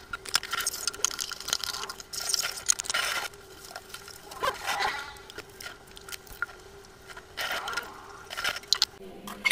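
Dishes being washed by hand at a stainless steel sink: a soapy sponge scrubbing a utensil with squishing and scraping, water splashing in several rushes, and small clinks, over a faint steady hum.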